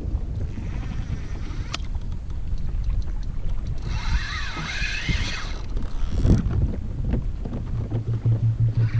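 Wind and choppy water rushing on an action camera's microphone on a kayak at sea. About four seconds in a brief wavering high whine rises and falls for a second and a half.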